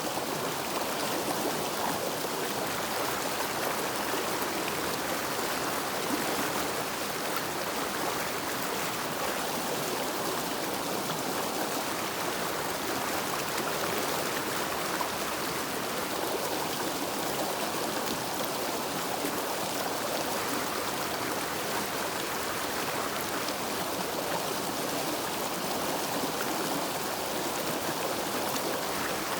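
River water flowing, an even and unchanging rush of running water.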